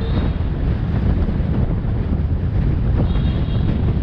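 Wind buffeting the microphone over the steady low rumble of a motorbike riding through city traffic.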